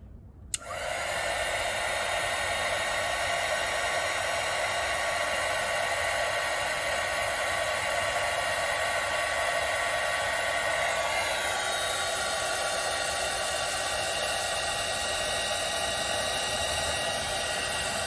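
Handheld electric heat gun switched on about half a second in and blowing steadily, shrinking heat-shrink tubing over a repaired wire.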